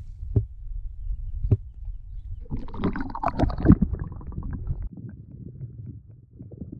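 Lake water heard through a submerged camera, muffled low rumbling and gurgling. Two sharp knocks come early, then a burst of sloshing and bubbling about two and a half seconds in. The rumble stops suddenly about five seconds in, leaving fainter scattered ticks.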